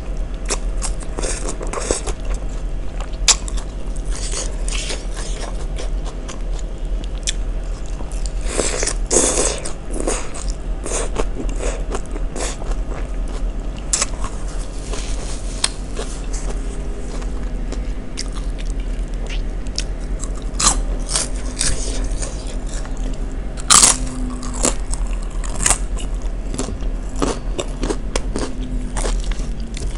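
Close-miked chewing and biting of a pickled raw-vegetable salad of shredded cabbage and lettuce in peanut sauce: a steady run of wet, crisp crunches, loudest in bursts about nine seconds in and again about twenty-four seconds in.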